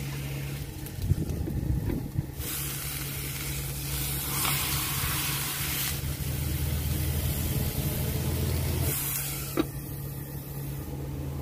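Steak frying in a pan on a portable gas stove, sizzling loudly from about two seconds in once the lid is off, after a clatter of the metal lid being handled. A steady low hum runs underneath, and a sharp knock sounds near the end.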